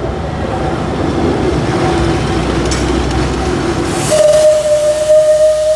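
Shay No. 25, a geared steam locomotive of the Alishan Forest Railway, running with a rumbling noise. About four seconds in, a steam whistle starts a long steady blast.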